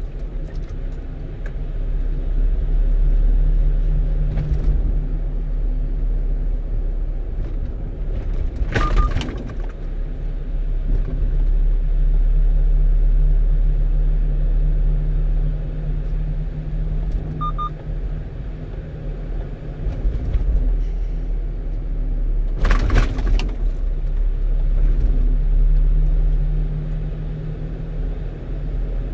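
One-ton truck driving on the road: a steady low engine and road rumble whose engine note swells and eases with the throttle. Two short sharp knocks about nine seconds apart stand out, one near the middle and one about two-thirds of the way through.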